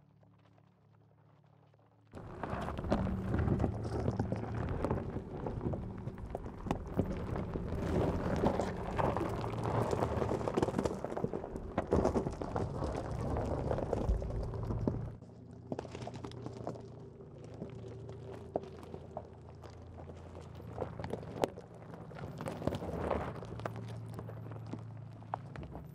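Tyres of the Mercedes G580 electric SUV crunching and crackling over loose rocks and gravel at crawling speed, with a low steady hum underneath. The crunching starts suddenly about two seconds in, is loudest through the middle, and gets quieter after about fifteen seconds.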